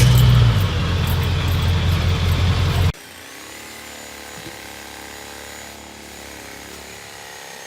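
A motor vehicle's engine running close by with a loud, steady low hum. About three seconds in it cuts off abruptly, giving way to a much quieter steady engine hum with a faint high whine.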